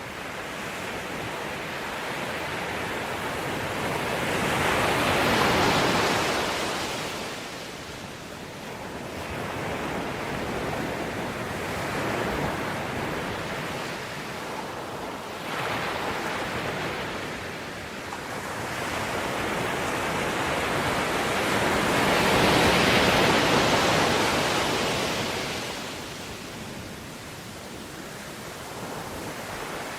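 Ocean waves breaking and washing ashore, the surf rising and falling in slow surges, two of them much bigger, peaking about five seconds in and again past the twenty-second mark.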